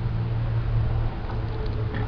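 A steady low mechanical hum inside a pickup truck's cab, with an even wash of background noise.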